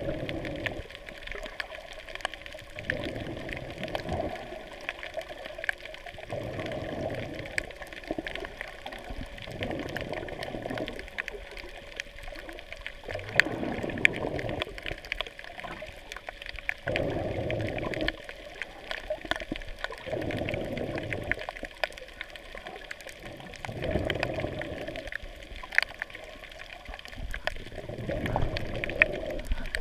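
Muffled underwater sound heard through a waterproof camera housing: low water swishes swell and fade in surges every three to four seconds, with scattered faint clicks throughout.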